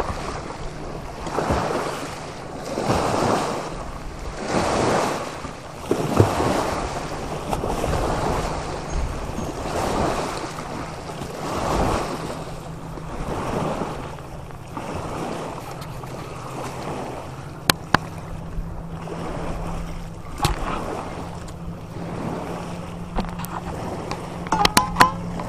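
Small waves lapping on a rocky lakeshore, swelling and fading every second or two, with wind on the microphone and a steady low hum underneath. A few sharp clicks come in the second half.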